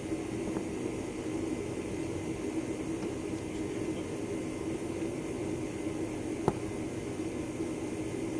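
Steady droning background noise with a low hum, unchanged throughout, and one sharp click about six and a half seconds in.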